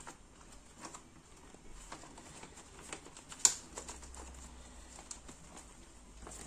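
Faint crackling and rustling of leaves being folded around a fish by hand, with scattered small taps and one sharp click about three and a half seconds in.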